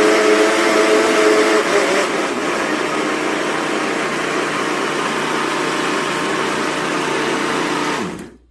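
Mondial Premium L51 800 W blender motor running under the load of carrot cake batter. Its pitch shifts about two seconds in, holds steady, then it is switched off near the end and winds down to a stop.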